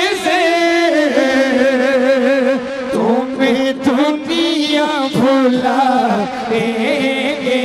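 A man singing a naat, the Urdu devotional song in praise of the Prophet, in long held notes that waver and bend.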